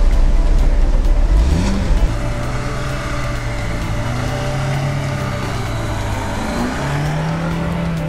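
Lada 4x4 Urban off-roader's engine revving under load on loose sand, its pitch rising and falling several times. It follows a heavy low rumble in the first second and a half.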